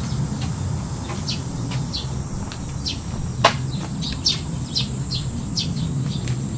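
Birds chirping outdoors: many short falling notes at irregular intervals, over a steady low hum. One sharp click comes about three and a half seconds in.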